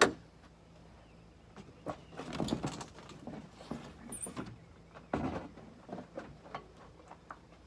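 A sharp knock, then a large sheet of T1-11 plywood siding being lifted off a wooden frame and turned over, scraping and bumping against the framing, with another sharp bump about five seconds in.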